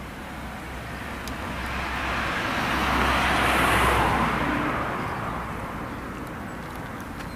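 A road vehicle passing by: a rush of tyre and engine noise with a low rumble that swells to its loudest about halfway through, then fades away.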